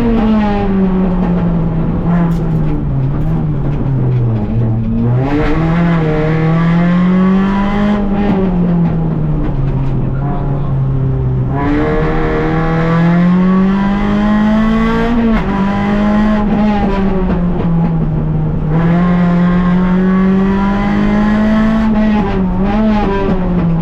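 Rally car engine heard from inside the cockpit at full stage pace, its note climbing and falling repeatedly as it revs up through the gears and drops back several times.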